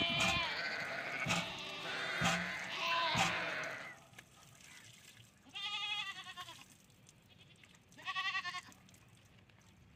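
Goats bleating: several wavering calls overlapping for the first four seconds, then two single bleats about six and eight seconds in. A few sharp knocks sound among the calls in the first three seconds.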